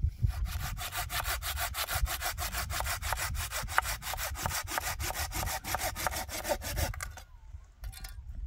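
Hand saw cutting through a wooden log with rapid, even back-and-forth strokes that stop about seven seconds in.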